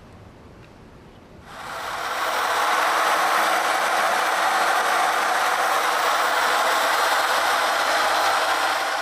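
DS301 handheld planetary polisher, driven by a FEIN polisher motor, running dry on a concrete countertop with 800-grit Velcro resin pads. It comes in about a second and a half in and then runs loud and steady as a grinding hiss.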